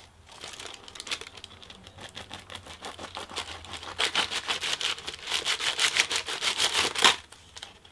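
Knife sawing through a crusty bánh mì baguette, the crust crackling in quick, dense little crunches that grow louder about halfway through and stop just before the end.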